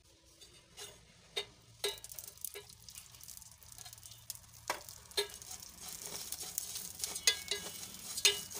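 Steel spoon stirring flattened rice (poha) roasting with ghee in a steel pan: scattered sharp clinks of the spoon against the pan over a sizzle that grows louder from about two seconds in, the flakes crackling as they puff.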